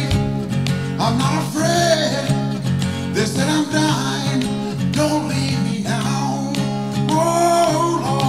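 A gospel song: strummed acoustic guitar with a man singing held, sliding notes in several phrases.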